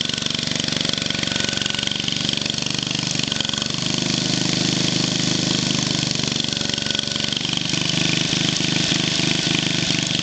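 Cub Cadet 108 garden tractor's single-cylinder Kohler engine running steadily under load while the tractor pulls a plow through garden soil. It grows louder about four seconds in.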